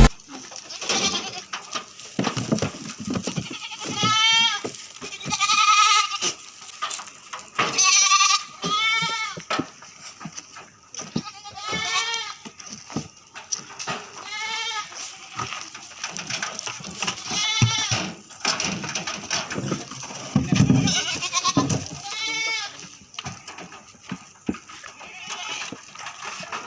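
Goats bleating, about a dozen wavering calls spread through the time, some from different animals overlapping, with a few short knocks between them.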